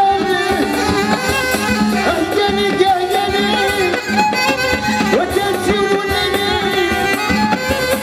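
Moroccan folk-pop band playing live through a PA system, a wavering bowed-string melody over keyboard, bass and a steady drum rhythm.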